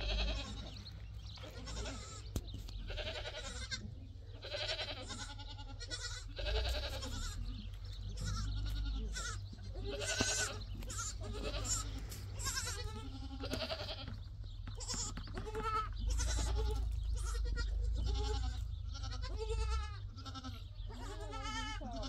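Goats bleating again and again, one wavering call after another, some overlapping, over a steady low rumble.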